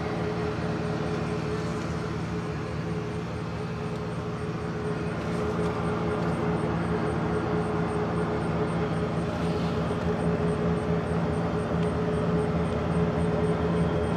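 A vehicle's engine running at a steady speed with a constant hum while driving slowly.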